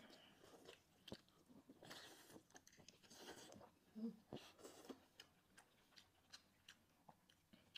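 Faint eating sounds of two people chewing braised chicken leg and eggplant: many short wet mouth clicks and smacks. A brief low hum from one of them comes about four seconds in.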